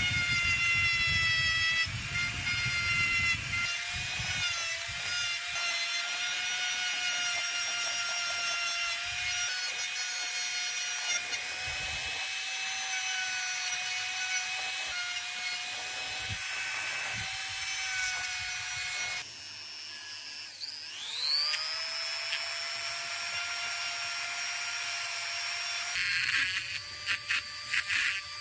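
Handheld rotary tool running at high speed with a steady whine, its bit rubbing and scouring metal parts of a cordless drill. About two-thirds through, the sound dips and the motor spins back up with a rising whine; near the end a small part rattles against the bit in a quick run of sharp contacts.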